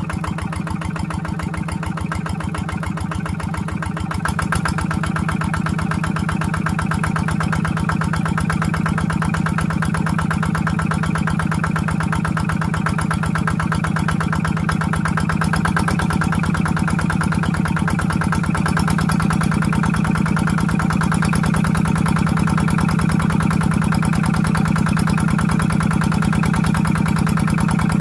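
Kubota diesel engine running steadily to drive a water pump, its steady firing getting slightly louder about four seconds in and again later.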